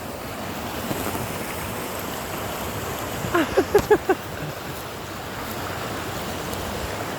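Steady rushing of a mountain stream, with a quick run of about five short pitched calls a little past halfway through.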